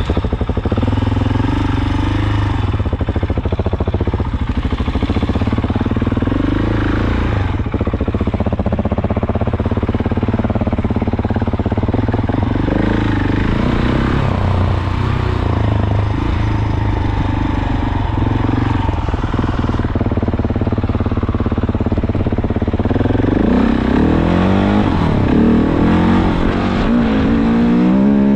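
Dual-sport motorcycle engine running as the bike is ridden along a dirt trail, its pitch rising and falling with the throttle and climbing higher several times near the end.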